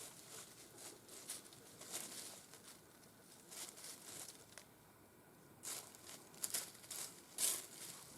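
Irregular rustling and crackling, like dry leaves or brush being stirred, with a lull about halfway through and a few sharper crunches in the second half.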